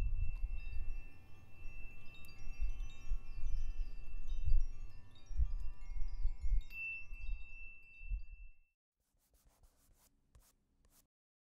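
Gongs ringing: a shimmer of many long, overlapping metallic tones over low rumbling swells, with small birds chirping faintly. It all cuts off abruptly about eight and a half seconds in, leaving near silence with a few faint clicks.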